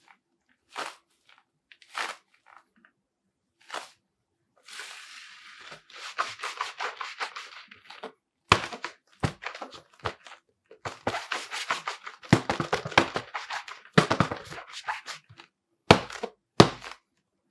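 Goalkeeper gloves being handled close to the microphone: scattered sharp taps and thunks, with stretches of scratchy rubbing and crackling. A few louder knocks come in the second half.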